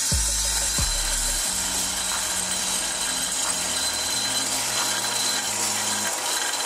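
Freshly roasted coffee beans rattling in a Hottop roaster's perforated cooling tray as the stirring arm sweeps them around with the cooling fan running: a steady, dense rattling hiss right after the beans are dropped from the drum.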